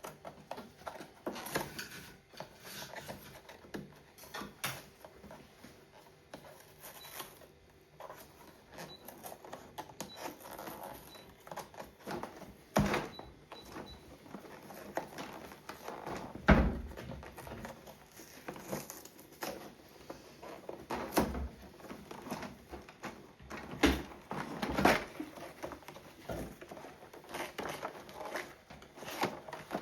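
Hands unboxing a pack of diecast toy cars: irregular clicks, taps and rustling of plastic and cardboard packaging, with a few sharper knocks.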